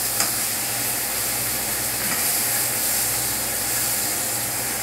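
Chicken pan-frying in a skillet, a steady sizzle, with a faint click about a quarter of a second in and a low steady hum underneath.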